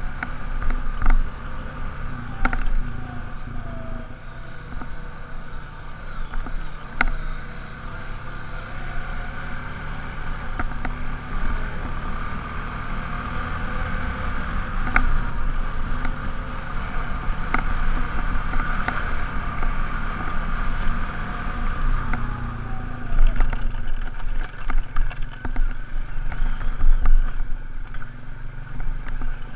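ATV engine running steadily as it rides a rough, rocky trail, with scattered knocks and rattles from the bumps.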